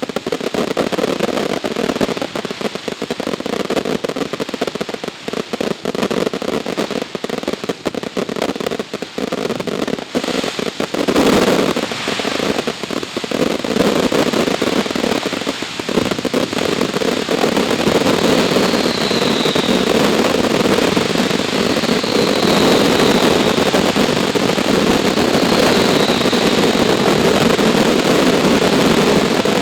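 Consumer fireworks going off in rapid succession: a dense crackling barrage with a louder bang about eleven seconds in, then a continuous, unbroken wash of firing.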